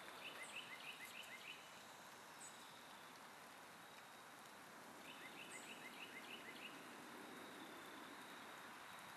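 Faint outdoor ambience with a bird singing a quick run of five or six short notes, twice about five seconds apart, along with a few thin high chirps and a faint steady high tone.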